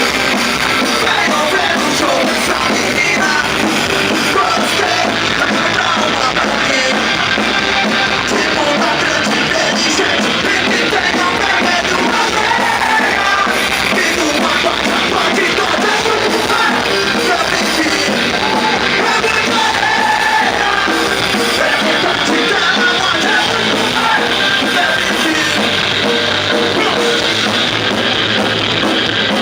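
A rock band playing loudly and steadily, with drums and a sung vocal over the instruments.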